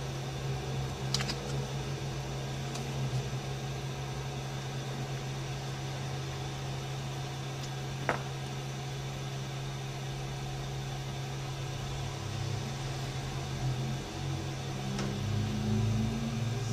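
A steady low machine hum with a few light clicks: one about a second in, a sharper one around eight seconds in, and a faint one near the end.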